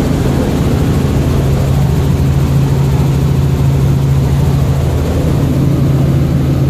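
Helicopter engine and rotor noise heard from inside the cabin: a loud, steady drone with a strong low hum.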